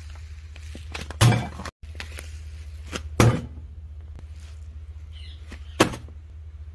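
Three loud thumps, a second or two apart, as sacks and metal are handled, over a steady low hum.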